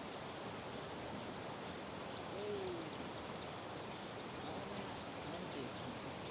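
Steady rushing of a fast-flowing river, with one brief, faint hoot-like call about two and a half seconds in.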